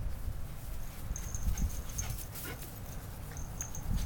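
Small dogs playing, with a short whine from one of them about two and a half seconds in, over scattered light clicks and rustles.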